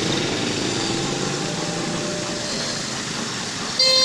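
Steady motorcycle engine and traffic noise from vehicles driving through floodwater, then a vehicle horn honks once, loudly, near the end.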